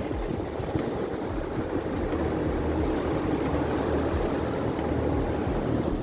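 Large dairy-barn cooling fans running, a steady rushing noise with a low hum underneath, switched on automatically once the sprinklers stopped.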